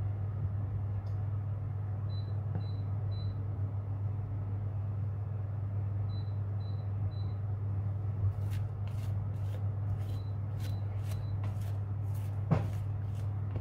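Steady low electrical hum with a kitchen appliance's electronic signal: three short high beeps, repeated every four seconds. In the second half come faint rapid clicks, and there is one soft knock near the end.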